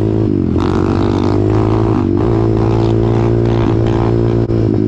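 Pit bike engine running at a steady, even pitch, dipping briefly about two seconds in.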